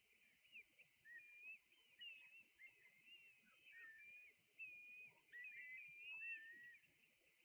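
Many birds of a resting flock giving short, high whistled calls that glide up and down in pitch and overlap, busiest in the second half.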